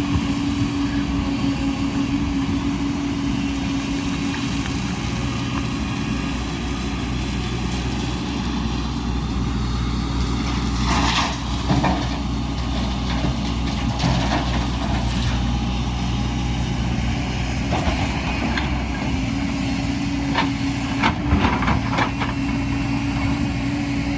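Heavy diesel construction machinery running steadily. Short clatters and scrapes come about halfway through and again several times near the end.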